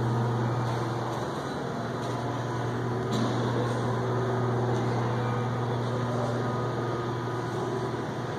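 Steady low hum of indoor ventilation with a faint hiss, and a light knock about three seconds in.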